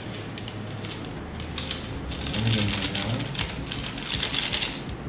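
A small seasoning sachet crinkling as it is squeezed and shaken out over a bowl of ground meat, a rapid crackle that grows denser in the second half.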